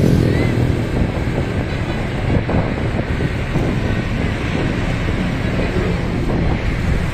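Steady low vehicle rumble with wind buffeting the microphone.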